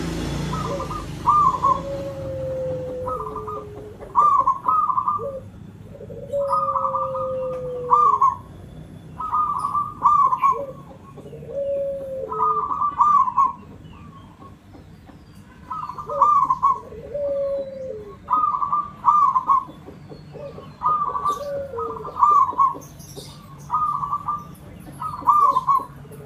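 Zebra dove (perkutut) cooing: repeated bursts of short, rolling coos about a second or two apart, with a pause of a couple of seconds just past the middle. Lower, drawn-out falling notes sound between some of the bursts, and faint high chirps sit in the background.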